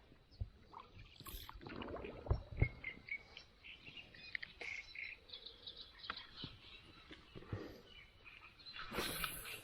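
Small birds chirping and calling, with scattered light knocks and a short rush of noise near the end.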